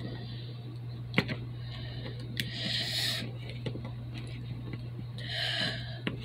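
Small plastic clicks and taps as the parts of a toy robot are handled and snapped together, the sharpest click about a second in, over a steady low hum. Two short breathy hissing sounds come near the middle and near the end.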